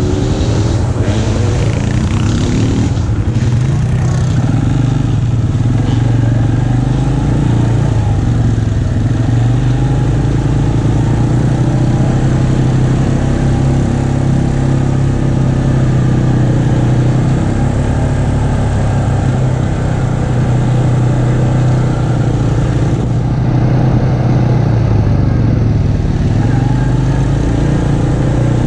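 ATV engine running at trail speed, a steady hum whose pitch rises and falls a little with the throttle.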